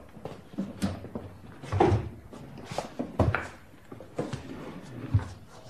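Chairs being moved as several men sit down: a few irregular wooden knocks and scrapes.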